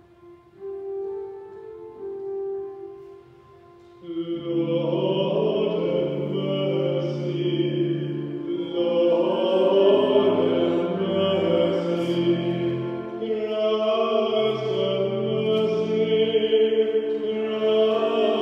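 Church music: held chords on a keyboard, then about four seconds in a louder, fuller passage with a voice singing over the accompaniment.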